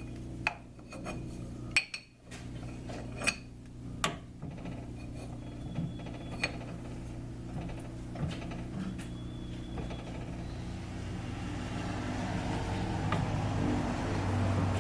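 Sharp metallic clinks and taps as lathe parts and the scooter wheel are handled and set up, about five in the first four seconds, over a low steady hum. Later a rubbing, scraping noise grows as the wheel is pressed onto the lathe mandrel.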